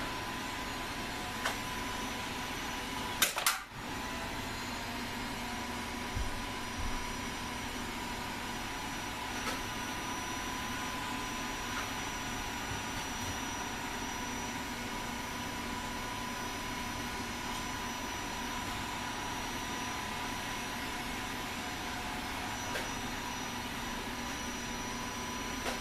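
A steady machine hum with a couple of constant tones in it. A sharp knock comes about three seconds in, and a few fainter clicks are scattered through.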